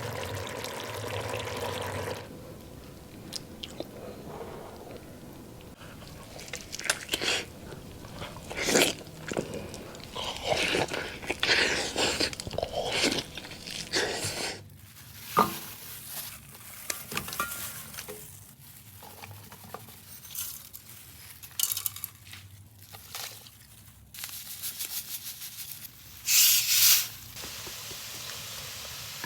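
Close-miked eating sounds: irregular biting and crunching chews, with a louder hissing burst near the end.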